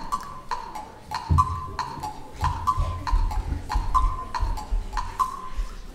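Hollow wooden percussion knocking in a steady rhythm of about two strokes a second, like clip-clopping hoofbeats. A low rumble joins under it from about a second and a half in.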